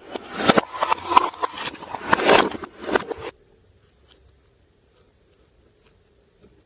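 Glossy slime being squished and worked by hand: dense wet crackling and popping clicks for about three seconds, then it stops suddenly, leaving only a few faint clicks.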